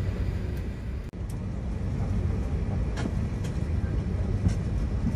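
Steady low rumble of an Airbus A380 passenger cabin on the ground before takeoff, with a few faint clicks and a momentary dropout about a second in.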